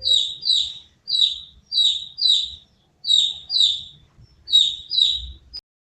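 A bird chirping: eight short, high chirps, each falling in pitch, given in quick pairs. The sound cuts off suddenly shortly before the end.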